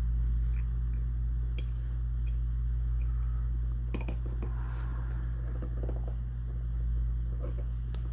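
A steady low hum of room or shop noise, with a few small clicks and scrapes of gun parts being handled while the shotgun's fore end is fitted back together.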